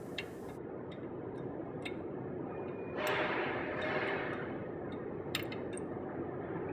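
Scattered light metallic clicks and ticks of a wrench and socket working the wheel's lug bolts, over a steady background hiss. A broad swell of noise rises about three seconds in and fades over the next second or so.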